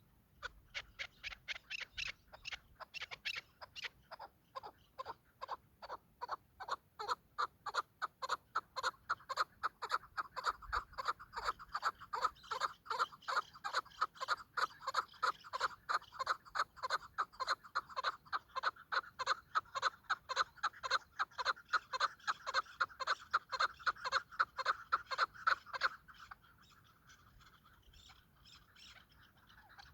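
Chukar partridge calling: a long run of short, rapid chuck notes, sparse at first and then about four a second, stopping abruptly about 26 seconds in.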